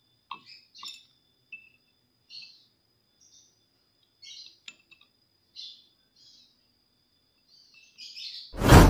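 Small birds chirping in short repeated calls, with a faint steady high tone beneath. Near the end a loud whooshing sound effect with a deep boom comes in, the opening of a subscribe-button animation.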